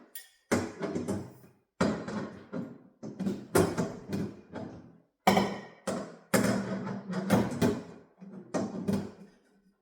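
A run of sharp bumps and clatters, roughly one or two a second, each ringing briefly before dying away, as refrigerator parts such as drawers, shelves and doors are handled and fitted.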